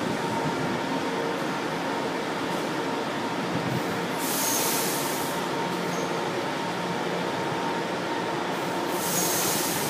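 São Paulo Metro Line 1 train moving alongside the platform in an underground station: a steady rumble of running and wheel noise. Two brief high hisses come about four and nine seconds in.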